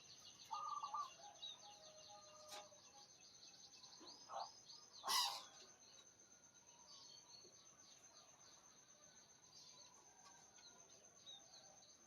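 Faint birds chirping: many short, quick, high falling notes over a steady high whine, with a single sharp knock about five seconds in.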